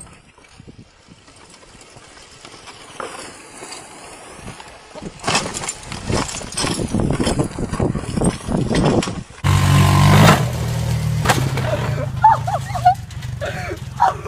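Quad ATV engines heard from a distance with wind rumbling on the microphone, growing loud and crackly midway. After a cut, an engine runs steadily, and short high-pitched calls come in near the end.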